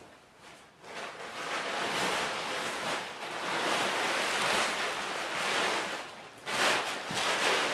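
Blue plastic tarp being shaken open and spread on a floor, rustling and crinkling. It starts about a second in, with a louder flurry near the end.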